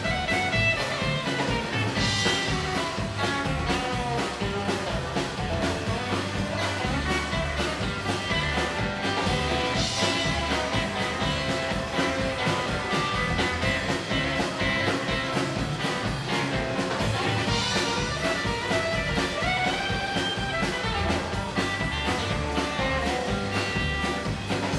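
Live rockabilly band playing an instrumental break with no singing: acoustic guitar over upright double bass and drum kit, at a steady even beat.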